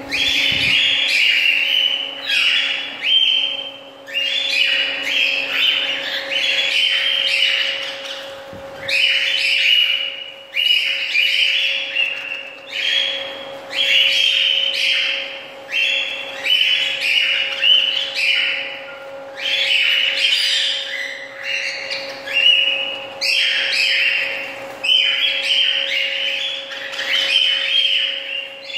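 Cockatiels chirping in rapid, continuous strings of short, high calls, with a faint steady hum underneath.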